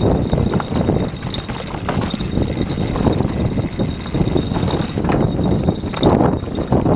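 Mountain bike ridden fast down a dirt trail: tyres rumbling over the ground, with the bike clattering and knocking over roots and bumps as it picks up speed.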